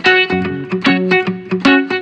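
Background music: plucked guitar playing a quick run of notes.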